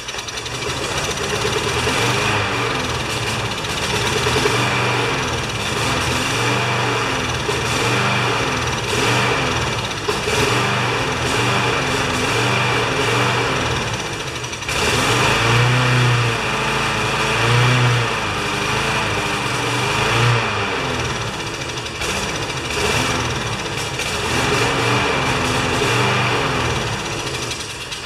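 Briggs & Stratton 190 cc lawn mower engine running only on gas poured into the carburetor, with the auto choke forced open. Its speed surges up and down about once a second. The owner takes this for a plugged carburetor that needs cleaning.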